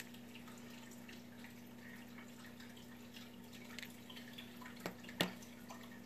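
Faint clicks and taps of small metal reel parts and digital calipers being handled on a work mat, with a sharper tap about five seconds in as a part is put down. A steady low hum runs underneath.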